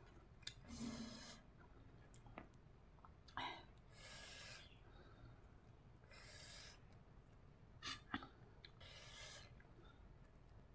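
A person breathing audibly while eating chilli-hot papaya salad. Four soft breaths come every two or three seconds, with a few sharp clicks of chewing or handling between them.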